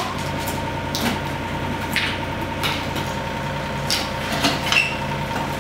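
An engine idling steadily, with a handful of sharp clinks and knocks as a steel pry bar levers up cut pieces of concrete slab.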